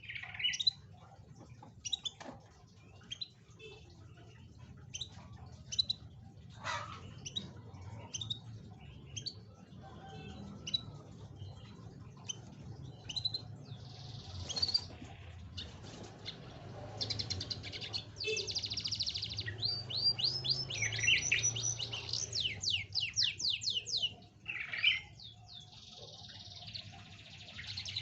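Domestic canary singing: scattered short chirps at first, then from about halfway a dense song of fast repeated trills and rolling phrases. A faint steady low hum lies underneath.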